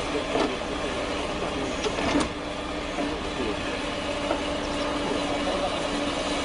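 Excavator engine running steadily, with a single sharp knock about two seconds in.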